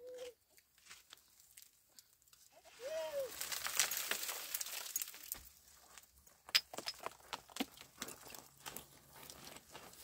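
Footsteps crunching and scuffing on loose gravel and dry stony earth. There is a burst of sliding, rustling noise about three seconds in, then scattered clicks of stones underfoot.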